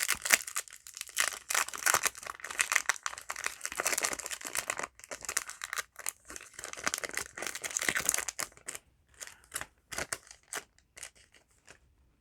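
A Yu-Gi-Oh! booster pack wrapper being torn open and crinkled, a dense crackling rustle for about eight seconds, then scattered light clicks and rustles as the cards are handled.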